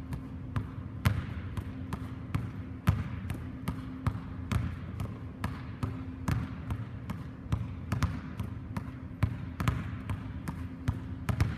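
Basketballs dribbled on a hardwood gym floor, a string of sharp bounces about two to three a second, slightly uneven, ringing a little in the hall.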